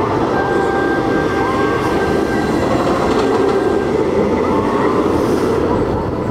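Steel roller coaster train rumbling along its track, a steady loud rolling noise with faint squeals, swelling and easing off near the end.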